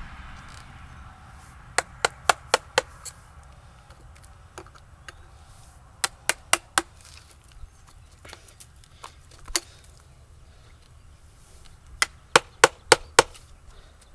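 Mallet striking a chisel into a wooden log in quick bursts of about five sharp knocks. There are three bursts with pauses between them, and a single blow in the middle.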